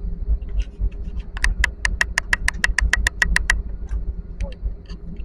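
Steady low rumble inside a jet airliner's cabin as it rolls along the runway for takeoff. About a second and a half in comes a quick run of about ten sharp clicks over two seconds, and two more follow near the end.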